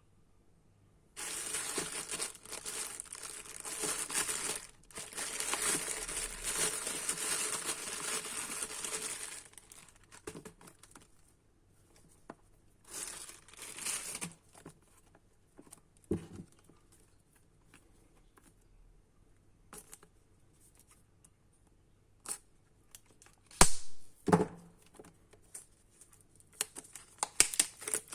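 Packaging of a new device crinkling and tearing as it is unwrapped: a long stretch of rustling and tearing, then shorter rustles and a few sharp clicks and knocks as the device and its parts are handled.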